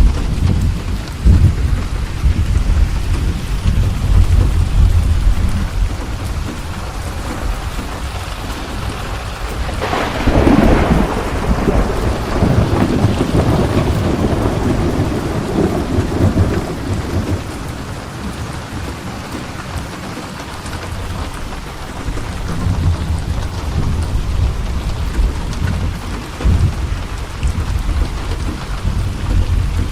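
Steady rain with rolling thunder: low rumbling in the first few seconds, a sharper thunderclap about ten seconds in that rolls on for several seconds, and rumbling again in the last third.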